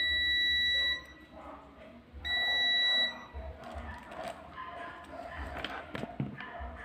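Multimeter continuity tester beeping twice, each beep a steady high tone just under a second long, about a second apart: the probes are across a connected conductor, showing continuity. Faint clicks and handling of the probes follow.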